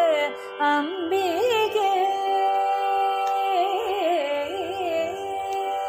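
Carnatic singing in raga Kalyani: a voice draws out a long melodic line, holding a note and then ornamenting it with quick pitch shakes, over a steady drone.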